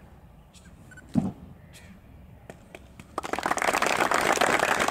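Audience applause breaks out about three seconds in: many hands clapping together in a dense, steady patter that keeps going.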